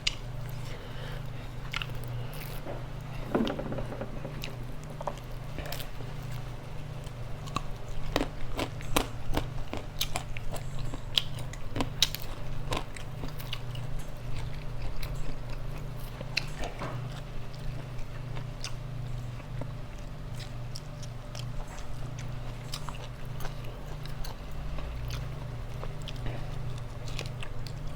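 A person eating grilled chicken: close-up chewing and biting, with short sharp crunches and clicks scattered throughout, over a steady low hum.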